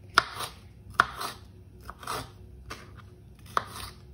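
Kitchen knife cutting strips of red bell pepper on a bamboo chopping board: a sharp tap of the blade on the board every second or so, each followed by a short crisp crunch as it goes through the pepper.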